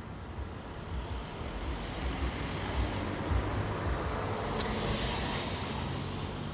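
A passing motor vehicle: a rushing rumble that builds from about a second in, peaks in the middle and then fades.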